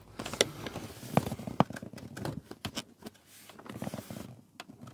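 Cables being pulled back through a plastic roof cable-entry gland by hand: scraping and rustling of the cable sheath and plastic, with a few sharp clicks in the first two seconds and softer handling noise after.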